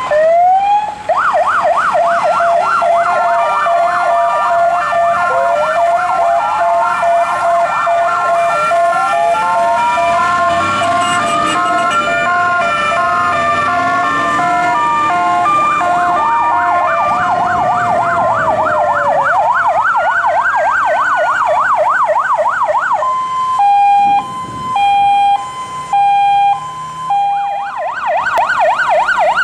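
Electronic sirens of several fire brigade vehicles on an emergency run, sounding over one another: a fast yelp sweeping rapidly up and down, slower wails rising and falling, and near the end a two-tone hi-lo sequence that drops out briefly a couple of times.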